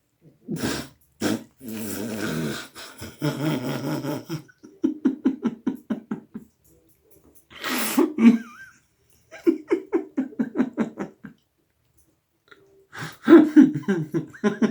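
A person laughing hard in repeated fits of quick, wheezy ha-ha pulses, with breathy gasps in between.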